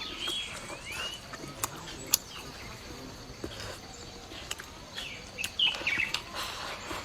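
Small birds chirping in short, quickly gliding calls, with a few sharp clicks and cracks in between; the loudest click comes about two seconds in.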